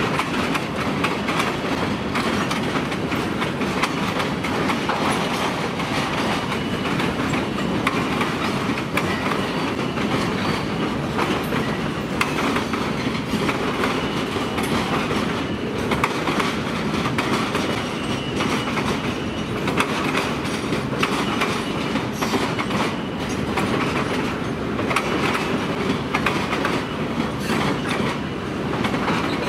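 Freight cars rolling across a steel girder bridge: a steady rumble of wheels on rail with frequent clicks and clatter as the wheels pass over joints.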